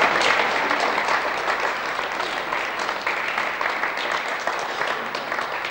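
A group of people applauding in a gymnasium, the clapping strongest at the start and easing off slightly.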